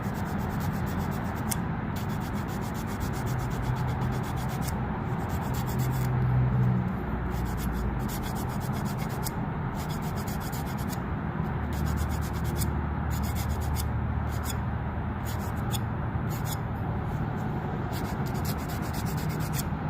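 Hand file scraping back and forth on a small plastic part, smoothing down an edge that sticks up, in a steady run of short rasping strokes.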